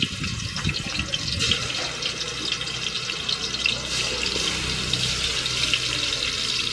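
Marinated chicken pieces sizzling and crackling in hot sunflower oil as they are shallow-fried, with more pieces being added by hand: a steady, dense crackling hiss full of small pops.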